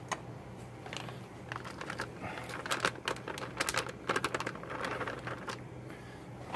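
Plastic bag crinkling as chopped seasoning-blend vegetables are shaken out of it into a cast iron Dutch oven, the pieces landing with many small irregular clicks and patters that grow busier about two seconds in.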